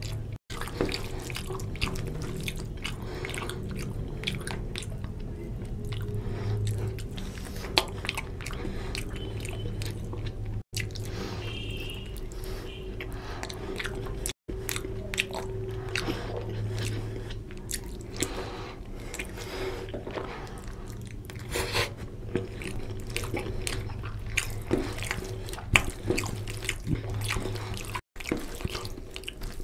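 Close-miked eating sounds: chewing and wet mouth smacks, with squelching as fingers mix basmati rice into oily mutton curry gravy. Irregular sticky clicks over a steady low hum, with a few brief silent gaps.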